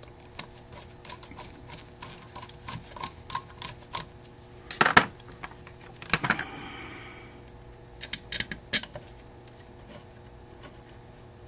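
Small metal clicks, several a second, as screws are started into the top of a Rochester 2G carburetor. Two louder metal clatters come near the middle, the second with a brief ring, and a few sharp clicks follow later.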